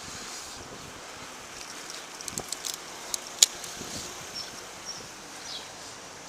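Steady wind and road hiss around a cyclist's camera, with a quick run of sharp clicks about two to three and a half seconds in and a few faint high chirps afterwards.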